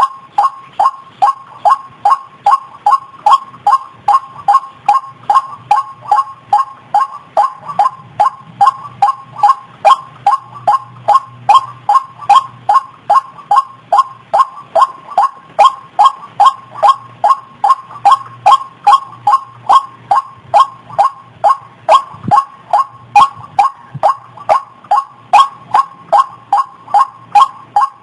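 White-breasted waterhen calling: a steady, monotonous series of short notes, about two and a half a second, each dipping slightly in pitch.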